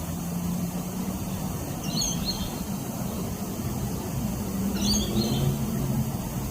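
A bird gives two short high chirps, about two and five seconds in, over a steady low engine hum.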